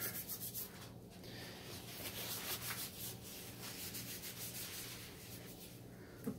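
Handheld torch hissing as it is played over wet poured acrylic paint. The hiss flutters and rises and falls unevenly, then dies down near the end.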